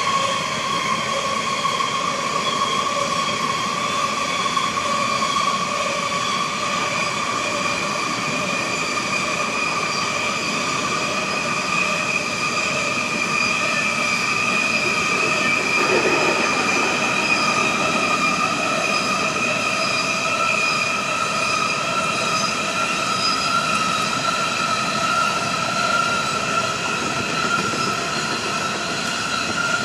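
A train running past with its steel wheels squealing on the rails: a continuous high-pitched squeal over the rumble, creeping slowly upward in pitch. There is a brief heavier knock about halfway through.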